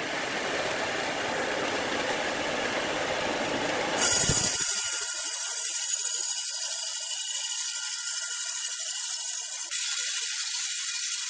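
Steady sawmill machinery noise that changes abruptly about four seconds in to a thin, high hiss with several steady high tones.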